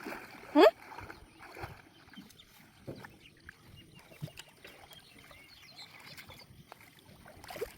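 Quiet handling of a fishing net, with scattered small clicks and rustles. A short, loud rising call cuts in about half a second in, and a fainter one comes near the end.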